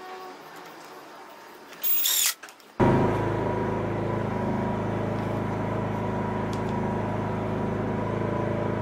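A short clatter, then a power tool's motor starts abruptly just under three seconds in and runs at a steady speed with an even hum.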